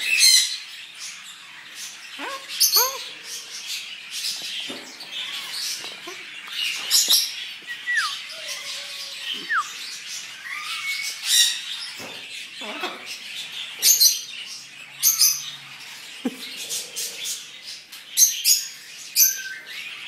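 A macaw in its cage giving scattered short, harsh squawks and chatter, with a couple of whistled notes falling in pitch about halfway through.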